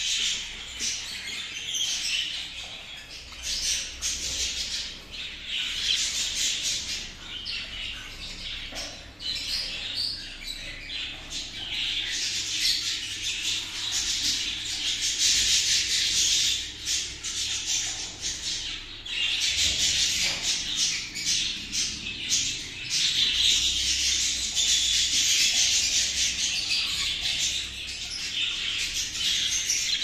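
Budgerigars of the frilled Hagoromo mutation chattering and warbling without pause, a busy stream of chirps and squawks that grows louder through the second half.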